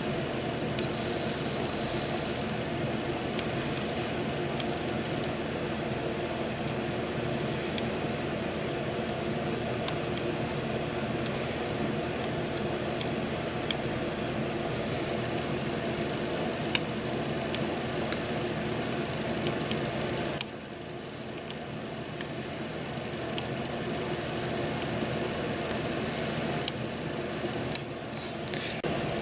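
A steady fan-like mechanical hum with scattered light clicks. The hum drops in level about twenty seconds in and comes back just before the end.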